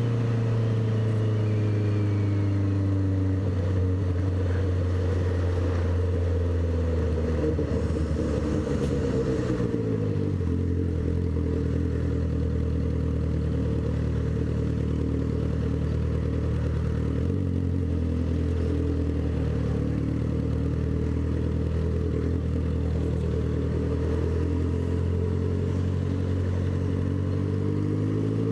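Honda CB650F's inline-four engine running loud under way. Its engine speed falls gradually over the first ten seconds, then holds steady with a sudden small step about seventeen seconds in, and climbs again near the end.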